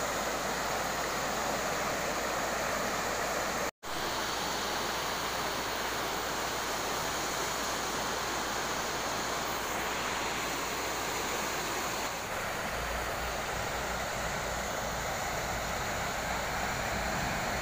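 River rapids, water rushing steadily over rocks, with a brief dropout about four seconds in.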